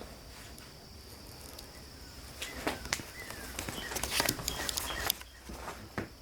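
Crunching and crackling steps on dry debris, a run of sharp cracks from about two and a half seconds in to about five seconds in, over a steady high-pitched insect drone.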